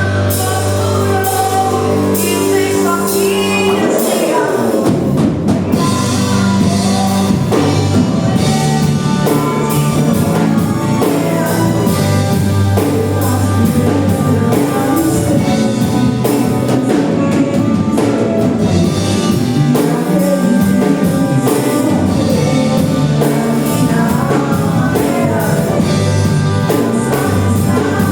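Worship band music with singing and a drum kit, playing continuously; a descending sweep in the sound about four seconds in.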